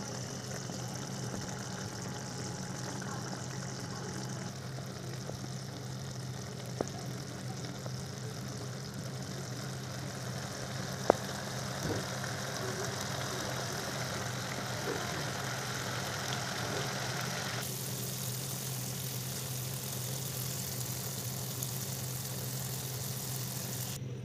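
Chicken curry gravy simmering and bubbling in a wok, with two sharp pops about seven and eleven seconds in, over a steady low hum.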